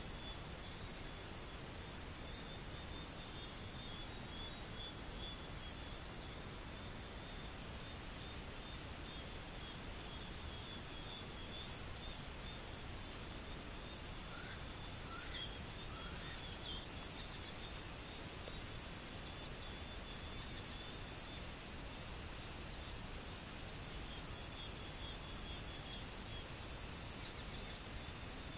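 Insects chirping in steady, even pulses about twice a second over a second high chirring. A few short gliding bird calls come around the middle, and a high hiss grows louder a little past halfway.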